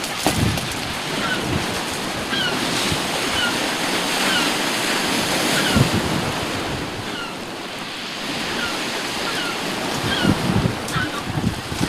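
Sea surf washing on the shore with wind buffeting the microphone in gusts. A run of short, high chirps repeats about once a second throughout.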